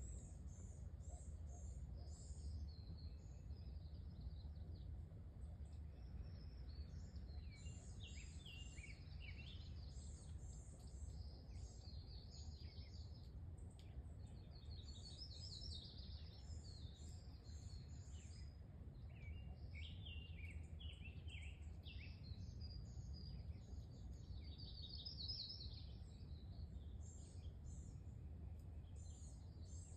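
Several songbirds singing and chirping in woodland, their high calls and trills overlapping, over a faint low steady rumble.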